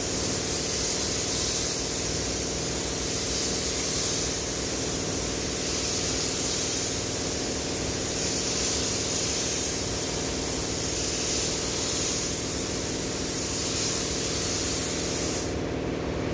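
Gravity-feed paint spray gun hissing as it sprays clear coat, the hiss swelling and easing gently and cutting off near the end. A steady hum runs underneath.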